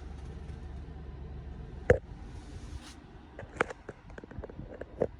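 A spray cleaner bottle hissing out one short spray, with a sharp click just before it and a run of lighter clicks and knocks about three and a half to five seconds in, over a low steady rumble.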